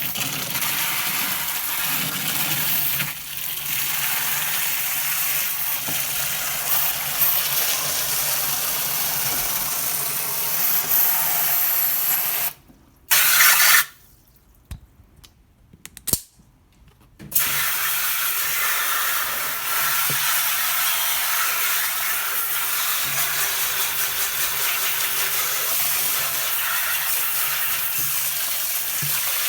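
Water running hard in a steady noisy rush, typical of a tap or hose spraying into a washing machine tub being cleaned. It cuts off twice around the middle, with a short loud burst between the breaks, then resumes.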